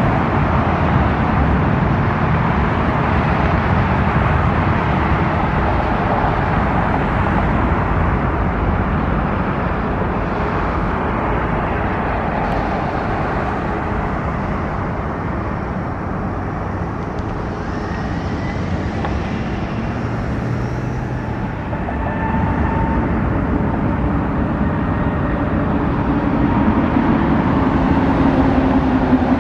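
The three jet engines of a McDonnell Douglas MD-11F freighter at taxi power as it rolls by: a loud, steady rumble with faint whining tones, and a low tone that edges up in pitch near the end.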